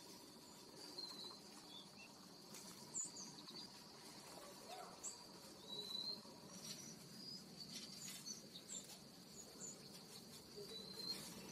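Faint, steady, high insect trilling, with scattered short high chirps and a few faint clicks over it.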